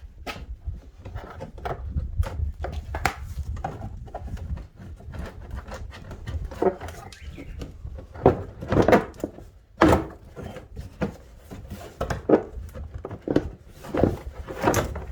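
A series of irregular knocks and clatters, more frequent and louder in the second half, over a low rumble.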